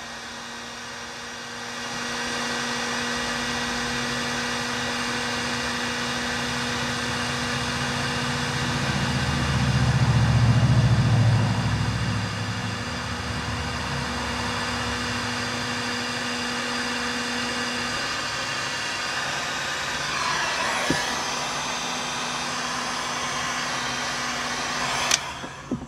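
A Porter-Cable heat gun runs with a steady blowing hiss and a faint motor hum, shrinking a solder-seal connector onto twisted wires. It comes up to full output about two seconds in and stops with a sharp click near the end. A low rumble swells for a couple of seconds midway.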